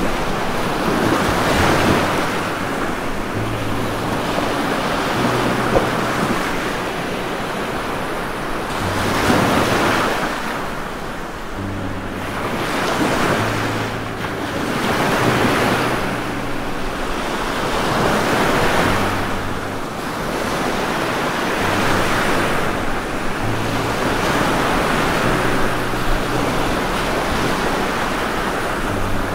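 Rain with wind rushing, swelling and easing every few seconds, with a low hum that comes and goes underneath.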